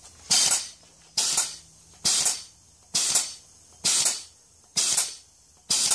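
MPS C2 drive-gas-powered booster pump cycling, each stroke venting a sharp puff of hiss that fades quickly, about one a second, seven in all. It is working against high fill pressure near 210 bar, its stroke rate slowing as the pressure ratio rises and the drive gas runs down.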